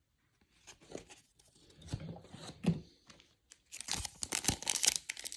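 A few soft clicks and rustles of cards being handled, then, about three-quarters of the way in, a trading card pack wrapper being torn open with loud crinkling.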